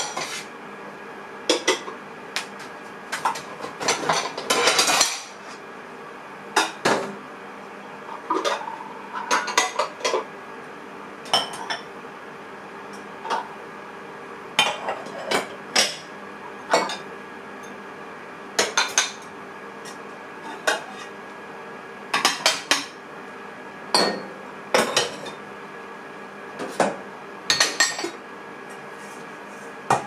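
Toshiba microwave oven running with a steady hum, over many sharp, irregular clinks and knocks.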